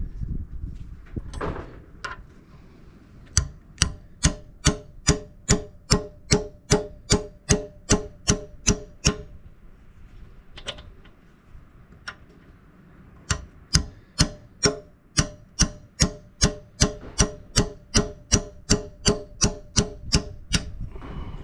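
A hammer tapping the steel retaining pin of an excavator bucket tooth into place: two runs of steady blows, about three a second, each with a short metallic ring.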